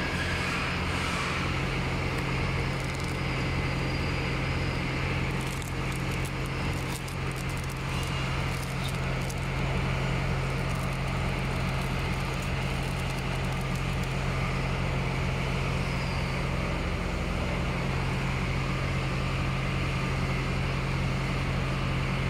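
Automatic cartoning machine running: a steady mechanical hum with a fast, regular beat underneath. Short crackles between about six and nine seconds in.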